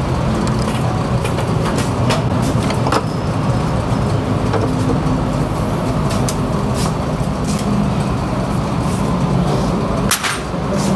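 Steady low drone of a running engine or motor, with a few light clicks, the sharpest near the end.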